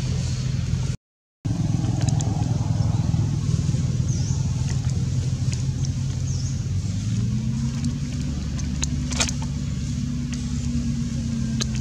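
An engine running steadily with a low hum, its note shifting up slightly about seven seconds in. The sound cuts out for half a second about a second in, and a sharp click comes near nine seconds.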